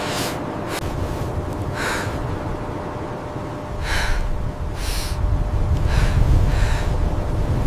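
Low, steady wind rumble on the microphone, with a run of short hissing bursts about a second apart.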